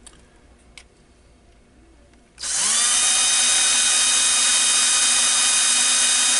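Cordless drill spinning up about two seconds in with a quick rising whine, then running steadily at speed while drilling out a rounded-top fastener on a small metal battery-clip bracket. A couple of faint clicks come before it starts.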